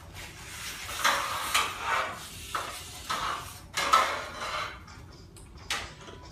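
Irregular clattering and rustling from handling work, in a string of short uneven bursts: the loudest are in the first four seconds, and a few fainter ones come near the end.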